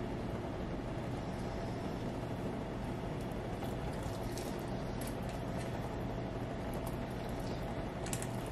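Hot water poured steadily from an electric kettle into a pot of tomato sauce with chicken in it, over a steady background hum.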